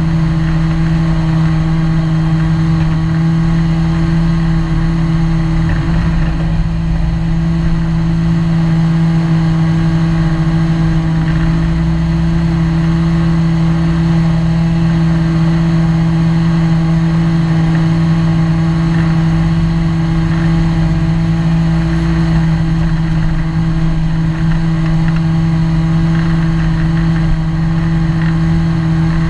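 Ginetta G20 GTR rally car engine heard from inside the cabin, running steadily at low, nearly constant revs as the car rolls slowly, with a steady drone throughout.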